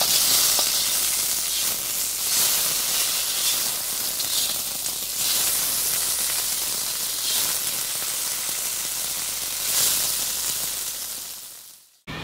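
A steady high hiss with no tune or voice in it, swelling a little now and then and fading out just before the end.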